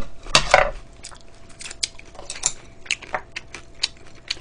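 Close-miked mouth sounds of eating cold noodle soup: chewing with many short, sharp wet clicks, and light clinks of chopsticks against the bowl, after a brief louder noise just after the start.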